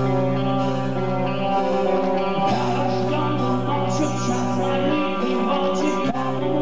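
Live heavy metal band playing, with held low notes under guitar. A male lead vocal comes in about halfway through, singing into the microphone.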